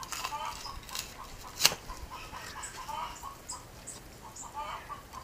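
Birds calling in short, repeated notes in the background, with one sharp knock a little under two seconds in.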